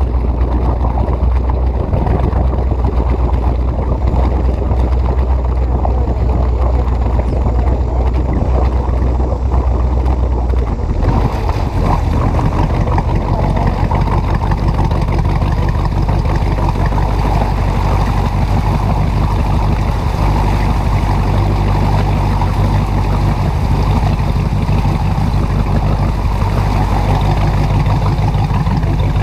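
Motor of a 1976 ski boat running underway, a steady drone with water and hull noise over it. The engine note changes about eleven seconds in.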